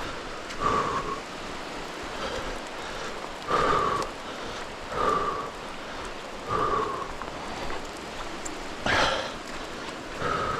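Steady rain falling in a forest, with a short, muffled sound repeating about every second and a half and a louder one near the end.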